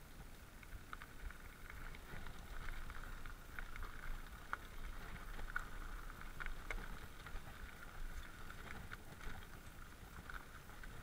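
Mountain bike rolling downhill on a dirt forest trail: a steady rush of tyre noise with bike rattle and many small clicks and knocks from bumps in the ground.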